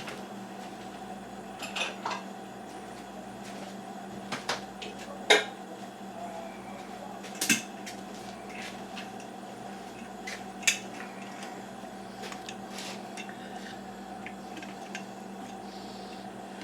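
Kitchen utensils and dishes clinking and knocking at intervals, with a handful of sharper clicks, over a steady faint hum.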